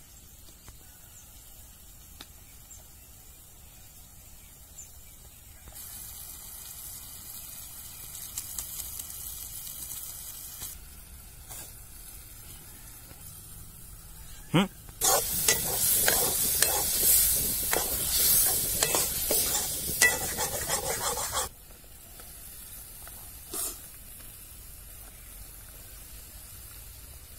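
Red masala frying in a metal kadai over a wood fire: a loud sizzle from a little past the middle, lasting about six seconds, with a metal ladle clicking and scraping against the pan as it is stirred. A softer sizzle comes earlier, and the rest is quiet.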